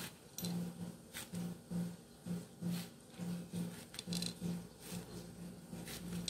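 Large kitchen knife slicing into a peeled pineapple on a wooden cutting board, cutting out the rows of eyes: short crisp cuts every second or so. A low hum pulses on and off underneath.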